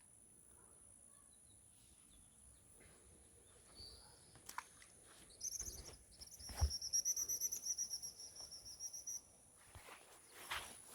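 A bird's fast, high trill, opening with a short upward slide and running for about four seconds from about halfway through, over a steady thin high-pitched insect whine. A single soft knock comes a little past halfway, and rustling near the end.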